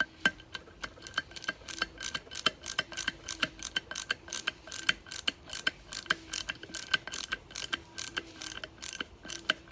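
Hand ratchet clicking in quick strokes, about four clicks a second, some louder than others, as the screws are run in on the Mercedes 722.6 transmission's valve body during reassembly.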